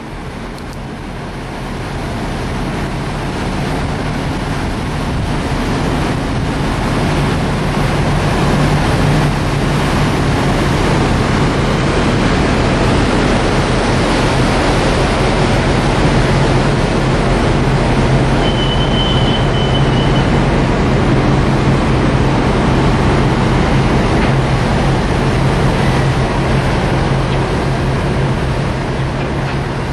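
Tugboat diesel engine running hard while pushing against a container ship's hull: a steady low drone under a rushing noise that swells over the first few seconds and then holds. A brief high whistle sounds about two-thirds of the way through.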